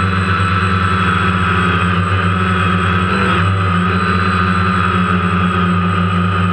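DJI Phantom quadcopter's electric motors and propellers running steadily in flight, heard from the GoPro mounted on the drone: a loud, even hum with a high whine over it. The pitch wavers briefly a little past halfway.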